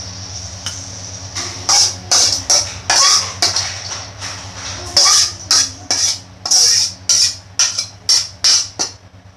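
A spatula scraping repeatedly against a wok, about two sharp strokes a second, as stir-fried food is scraped out of the pan, over a steady low hum.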